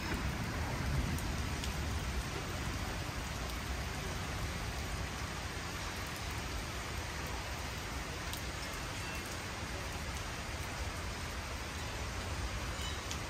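Steady rain falling on wet paving and puddles, with a low rumble underneath.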